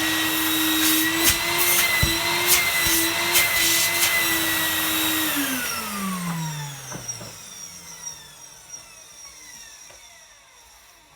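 Numatic WV370 wet-and-dry vacuum cleaner running with a steady motor whine, with a few sharp knocks in the first few seconds. About five seconds in it is switched off and the motor winds down, its whine falling in pitch and fading. The motor, which the owner believes is around 30 years old, runs reasonably well.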